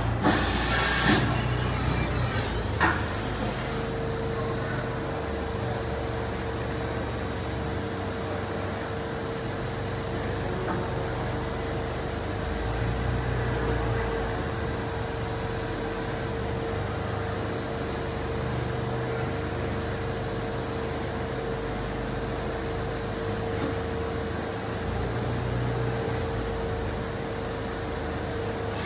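Doosan Mynx 6500 vertical machining center running under power: two short bursts of hiss in the first few seconds, then a steady thin whine over a low, slowly swelling hum.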